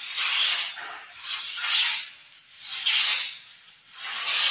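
Palms rubbing firmly along the surface of a laminate-faced board, pressing the laminate down, in four long strokes about a second and a half apart.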